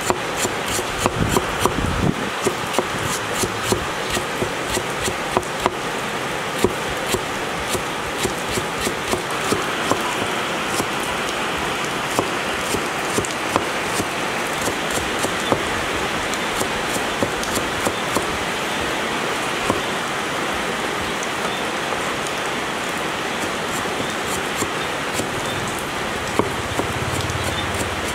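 Cleaver slicing lemongrass on a wooden chopping board: short, uneven knocks of the blade on the wood, roughly one to two a second, over a steady hiss.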